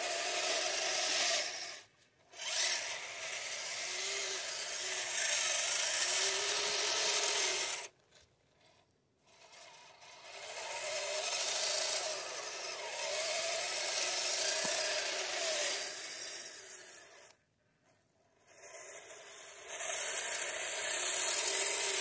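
Dual 380 electric motors and gear drive of a Kyosho Blizzard RC tracked snow vehicle whining and rasping as it pushes its plow blade through snow, the whine rising and falling with the throttle. It cuts out three times when the throttle is let off, about 2, 8 and 17 seconds in.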